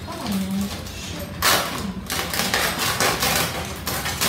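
Clear plastic packaging crinkling and rustling as the stool's steel legs are handled inside it, with light knocks of the parts. The rustling is loudest from about a second and a half in.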